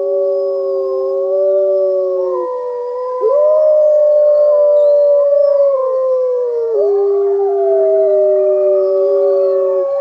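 Gray wolves howling in chorus: several long, overlapping howls at different pitches, held and gliding slowly, louder from about three seconds in, cutting off suddenly at the end.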